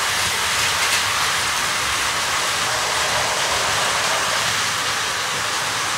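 Battery-powered Plarail toy train running on plastic track: a steady whirring rattle from its small motor, gears and wheels.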